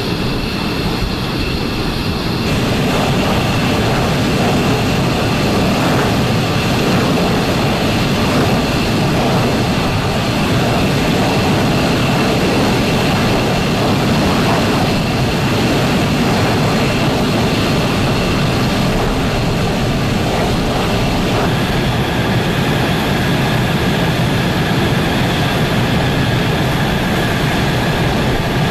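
Fighter jet engines running on the ground: a steady rushing jet noise with high whining tones over it. The sound shifts about two seconds in, and a further, lower whine joins about three quarters of the way through.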